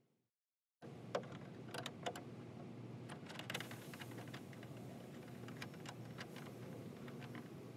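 Wrench on a hood-hinge bolt: irregular sharp metal clicks and taps over steady background noise, the loudest about a second in. Dead silence for the first moment.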